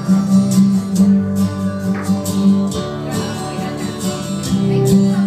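Instrumental break in a backing track, with strummed acoustic guitar and a steady beat between sung lines.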